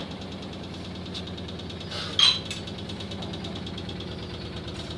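LG 6.5 kg top-load washing machine spinning its tub fast, a steady hum with a fast, even pulse of vibration. A short, loud clatter comes about two seconds in.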